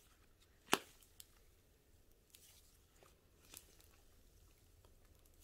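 Cloud slime being stretched and pressed by hand: faint squishing and crackling with a sharp pop under a second in and a few fainter ones later.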